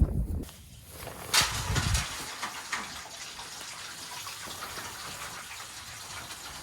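Water gushing steadily into a rubber livestock water tub, with a single knock about a second and a half in.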